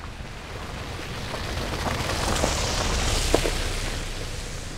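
Mini Cooper S Countryman ALL4 driving past on a muddy dirt track: tyre and engine noise swells to a peak about three seconds in, then fades as the car moves away. A few sharp cracks and crunches from the tyres come near the peak.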